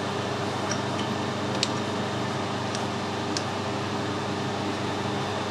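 Steady machine hum, a low drone with its overtones, with four faint, short clicks from hands working the lathe's four-jaw chuck during setup.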